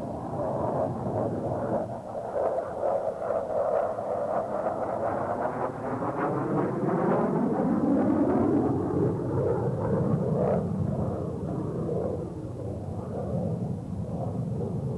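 F-16 fighter's single jet engine flying past low: steady jet noise, with the pitch sweeping downward around the middle of the pass as it goes by.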